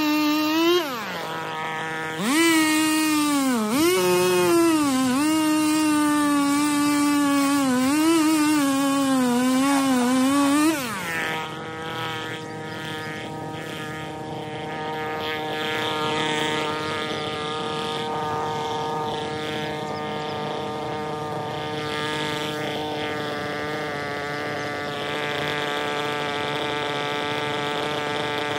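Two-stroke chainsaw cutting through a tree branch at full throttle, its pitch dipping several times as the chain bogs in the wood. About eleven seconds in it drops to a steadier, quieter idle.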